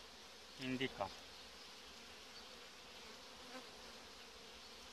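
Honeybees from an open hive, a steady buzzing.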